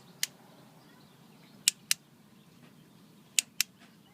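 Suzuki LTR 450 quad's starter solenoid relay clicking as the starter is tried: three quick double clicks about a second and a half apart, with no cranking. The starter motor does not turn over, though the battery is charged.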